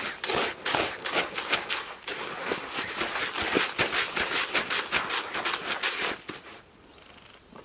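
Dry feeder groundbait being stirred and mixed by hand in a bucket: a quick, continuous crunchy rustling that stops about six seconds in.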